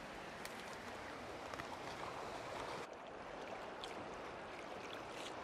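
Steady hiss of running river water, with no distinct events. The highest part of the hiss drops away about three seconds in.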